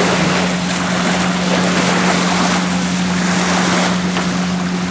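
Steady rush of wind and waves, loud and even throughout, with a constant low hum underneath.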